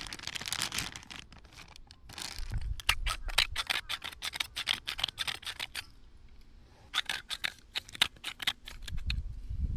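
Rapid series of small, crisp clicks or snips, about seven a second, in two runs with a short pause between them.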